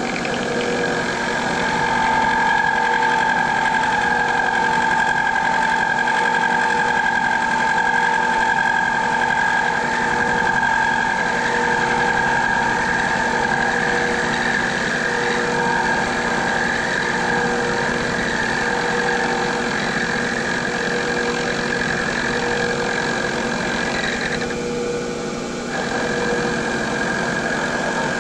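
1941 Bridgeport J-head milling machine running, its end mill side-milling square bar stock, with a steady high whine over the motor. The whine briefly drops out about 24 seconds in, then comes back.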